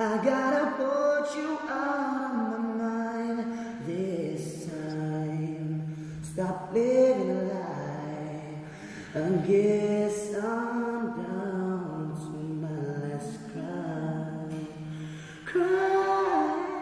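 Man singing a slow ballad with long held, sliding notes, to an acoustic guitar.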